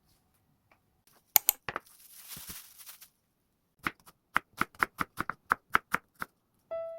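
Kitchen knife chopping on a cutting board in an even run of about four strokes a second, after a few separate knocks and a brief rustle. Background music comes in near the end.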